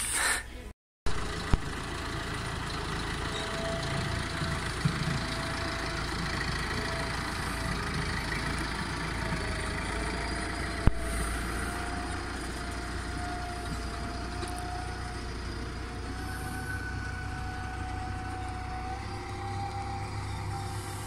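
Tractor engine running steadily as the tractor drives with a mounted seed drill, with a faint whine that slowly rises in pitch. A single sharp click about eleven seconds in.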